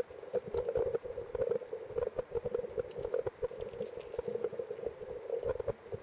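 Stream water rushing past, heard underwater: a steady hiss with many irregular clicks and crackles.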